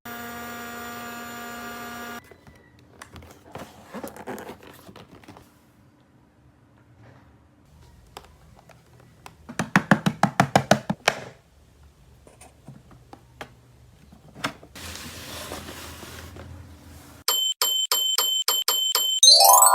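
Plastic toys being handled, with electronic toy sounds. A steady buzzing tone plays for the first two seconds. About ten seconds in there is a fast run of sharp clicks lasting under two seconds. Near the end comes a quick series of beeps that finishes in a rising sweep.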